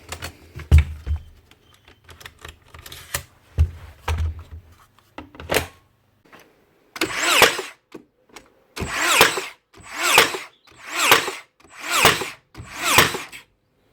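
Makita DBN600 cordless nail gun firing repeatedly: six whirring shots about a second apart in the second half, now working properly after a broken micro switch was replaced. Before them, a few dull knocks.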